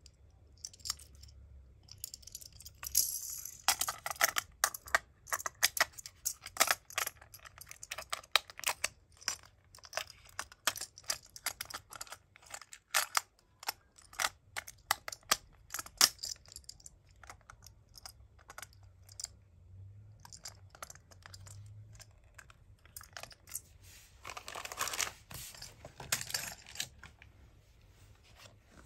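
Small, sharp clicks and taps of a die-cast Tomica toy truck and its plastic boat load being handled in the hands. A denser rustle comes near the end.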